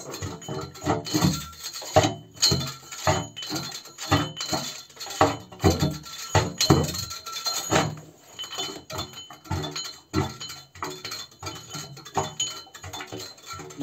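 A well bailer working up and down inside the steel casing of a shallow needle well, making repeated irregular metal clanks and knocks, about two a second, some with a short ring from the pipe. It is bailing sand out of the borehole so the casing can sink.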